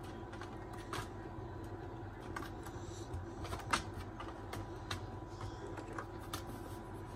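Scattered small clicks and light knocks of hand tools and small parts as a pin is fitted into an RC car's wheel hub, with one sharper click a little past the middle.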